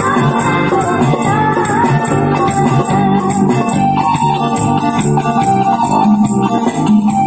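Live band playing an instrumental stretch of a song: an electronic keyboard melody over bass and a steady drum beat, with a rattling shaker-like percussion sound.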